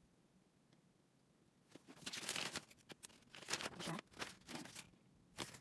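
Folded paper leaflet rustling and crinkling as it is picked up and opened, in several bursts starting about two seconds in.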